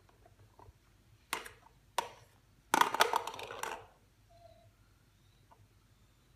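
Small plastic balls clicking and rattling in a plastic toy gumball machine: two single clicks, then a louder clatter lasting about a second, around three seconds in.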